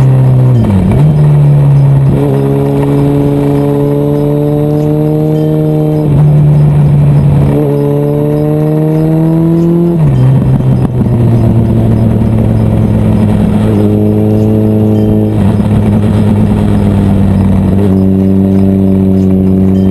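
Suzuki B-King motorcycle's 1340 cc inline-four engine under way on the road, with wind rush. The engine note climbs slowly, falls sharply about six and ten seconds in, then holds a steadier, lower note.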